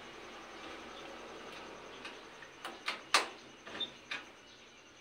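A handful of sharp clicks and knocks, about half a dozen in two seconds, the loudest a little past halfway, over faint steady background noise.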